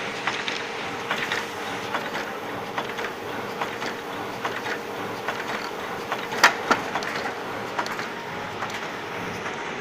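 Elba SA 9011-E bag-making machine running: a steady mechanical hum under a rapid, irregular clatter of clicks, with a sharp louder double knock about six and a half seconds in.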